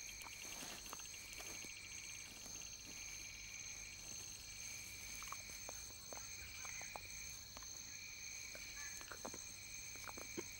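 Insects calling in the background: several steady high-pitched trills at different pitches, and a lower insect chirping in repeated stretches about a second long. Faint scattered clicks and rustles.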